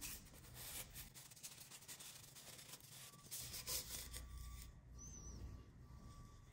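Faint rubbing and rustling of paper yarn loops being slid by hand off a tube.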